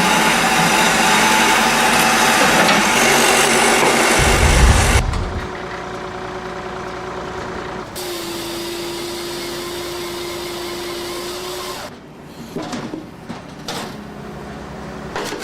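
Heavy machinery engines running hard during an attempt to uproot a tree, with a deep thump about four and a half seconds in. The engine then runs more quietly with a steady hum, followed by a few uneven bursts of noise near the end.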